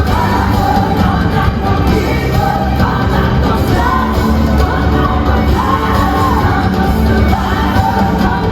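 Loud pop music with a singer's voice over a steady bass beat, played over a sound system.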